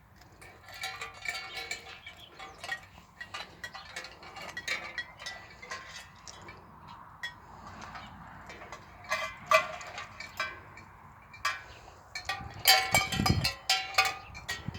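A jingling, clinking noise toy shaken in irregular bouts, its strikes ringing briefly, louder in the last few seconds. About 13 seconds in there is a low thud.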